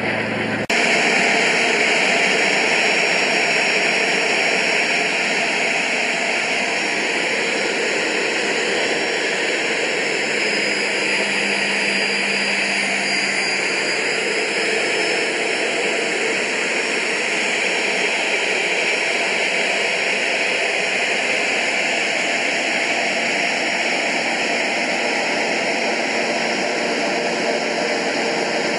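Steady jet engine and airflow noise inside the cockpit of a Soko G2 Galeb jet trainer in flight, its Rolls-Royce Viper turbojet running. A brief distant jet sound cuts off abruptly less than a second in. About halfway through, a faint high whine dips in pitch and rises again.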